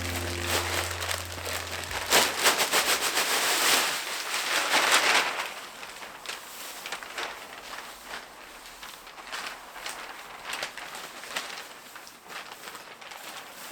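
Music ending about two seconds in, then rustling and crackling noise, loudest from about two to five seconds in, dying down to faint scattered crackles.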